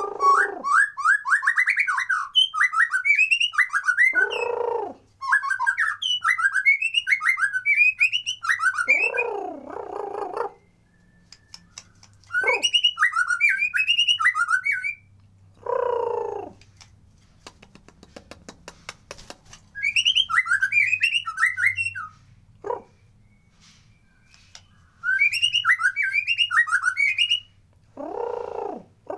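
White-rumped shama singing in bursts of quick, high twittering phrases a few seconds long, separated by pauses, with a few lower downward-sliding notes between the bursts.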